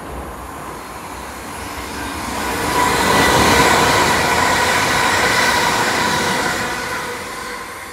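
ScotRail Class 380 Siemens Desiro electric multiple unit passing through the station at speed without stopping. It builds from about two seconds in, is loudest in the middle and fades away near the end, with a steady high whine over the rumble of the wheels on the rails.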